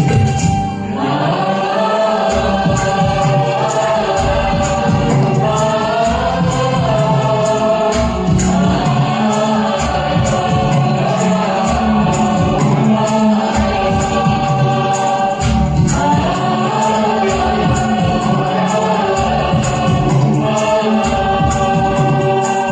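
Instrumental interlude of a Bollywood film-song backing track, with wordless choir-like voices held over a steady beat.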